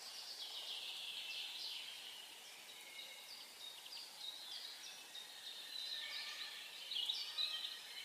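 Several small birds chirping and singing at once, a busy, overlapping chorus of high chirps and short trills, a little louder about seven seconds in.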